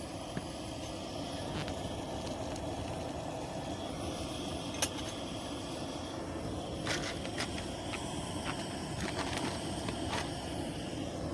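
Camp propane stove burner running steadily under a pot of water, with a few light ticks here and there.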